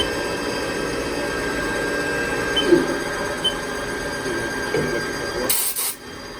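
Computer-controlled (CNC) machine tool running its cutting program: a steady mechanical hum with several fixed whining tones. About five and a half seconds in, a short high hiss lasts about half a second.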